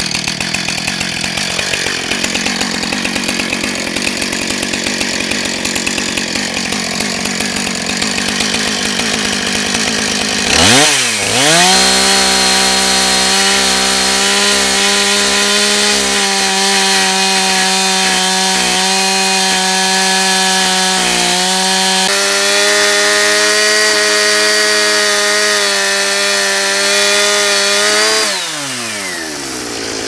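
Small two-stroke gas chainsaw running. About ten seconds in it revs up to full throttle and holds a steady high pitch for some seventeen seconds, ripping lengthwise through a small log in a homemade chainsaw mill, then the revs fall away near the end.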